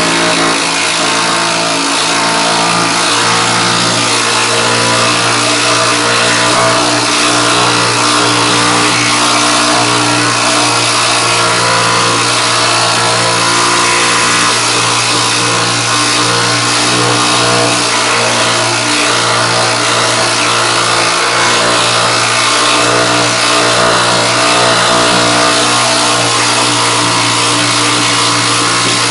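Air-powered needle scaler running continuously with a steady, loud rapid hammering buzz as its needles chip thick rubbery undercoating off the steel underbody down to bare metal.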